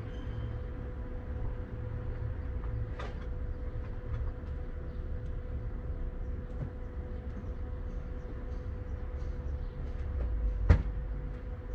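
Steady low rumble with a faint constant hum, and scattered light clicks of handling. One sharp knock sounds near the end.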